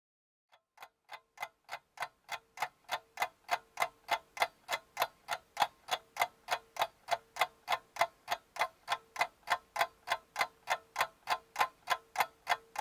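Clock ticking in a fast, even rhythm of about three ticks a second. It fades in over the first couple of seconds and stops abruptly at the end.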